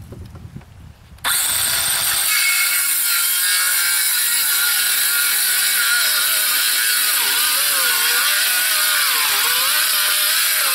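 Ryobi circular saw switching on about a second in and cutting through a sheet of OSB, its loud motor and blade whine wavering in pitch as the blade is pushed along the cut.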